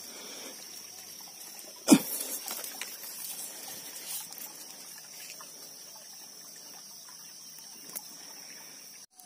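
Water at the canal edge: one sharp splash about two seconds in, the loudest moment, then faint trickling and rustling, with a small click near the end. A thin steady high whine runs underneath.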